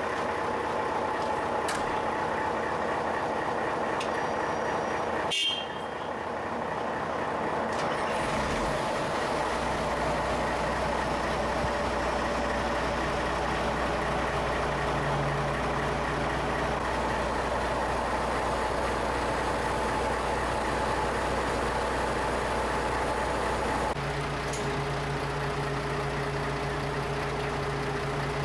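Diesel engine of a snow-clearing motor grader running steadily. Its hum changes abruptly about five seconds in and again near the end.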